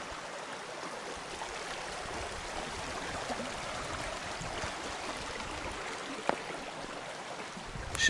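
Small forest creek running: a steady rush of water, with one sharp click a little over six seconds in.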